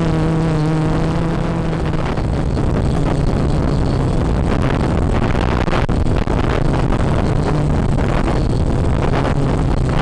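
Quadcopter motors and propellers running, heard through the onboard camera's microphone: a steady buzz for about the first two seconds, then a rough, gusty rushing as strong wind buffets the microphone in flight.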